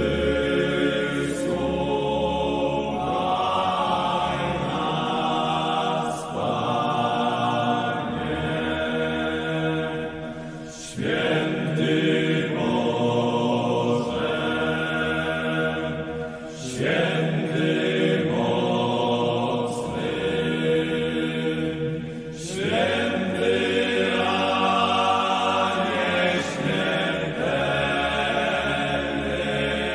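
Slow choral chanting: voices hold long sustained notes in phrases, with short breaks between phrases about every five or six seconds.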